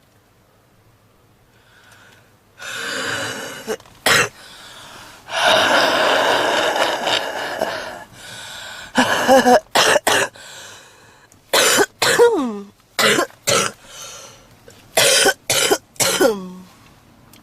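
A heavy smoker's harsh coughing fit: a long rasping stretch about five seconds in, then clusters of hard, sharp coughs through the second half, some ending in a falling, wheezy tone. The uploader presents it as a smoker's cough typical of smoker's bronchitis.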